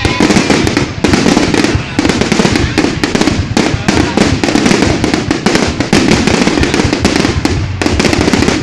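Fireworks going off in rapid succession, a dense, continuous crackle of pops and bangs with no break.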